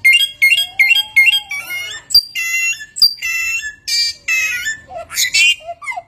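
A samyong songbird sings a loud, fast medley of whistled and chirping notes that keep changing pattern, the many-voiced imitating song this bird is kept for. Two sharp clicks come about two and three seconds in.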